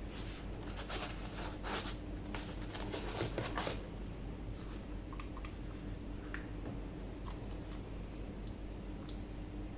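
Unboxing sounds: cardboard and plastic packaging rustling and sliding for the first few seconds, then scattered light clicks and taps, over a steady low hum.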